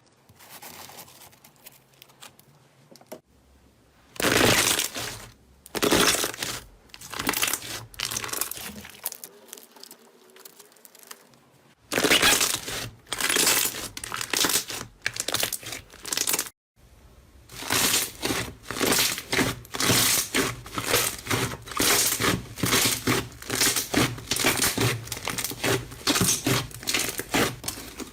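Slime being squeezed and pressed by hand, making short crackly, crinkly squishes. They come in irregular bursts at first, then settle into a steady run of about two a second, broken by a few abrupt cuts.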